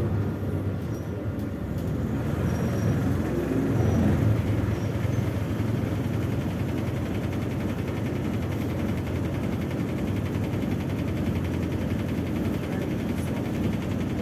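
Interior of a MAZ 206 city bus under way: its diesel engine and road noise run steadily, with the engine note rising briefly about four seconds in.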